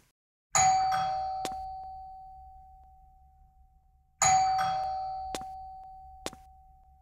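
Doorbell rung twice, about three and a half seconds apart, each ring a bright chime tone that fades away slowly.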